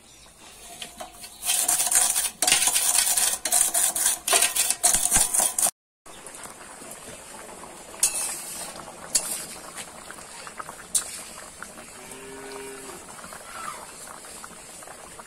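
Metal utensils clatter rapidly against a steel bowl for about four seconds. Then the fish and potato curry bubbles in a wide metal pan while a metal ladle stirs it, knocking the pan a few times.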